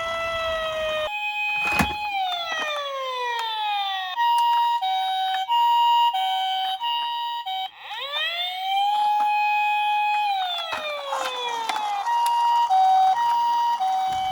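Electronic toy emergency-vehicle sirens. A wailing siren slides down in pitch, then a two-tone hi-lo ambulance siren alternates about once every three-quarters of a second. About eight seconds in, the wail rises, holds and falls away, and then the two-tone siren returns. A sharp click comes about two seconds in.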